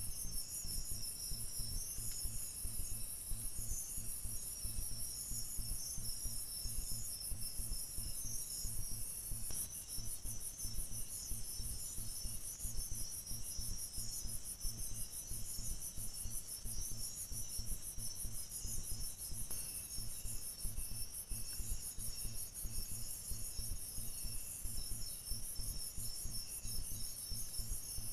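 Crickets and other night insects chirping: a fast, high-pitched trill with shorter chirps repeating about once a second beneath it. A low rumble runs underneath.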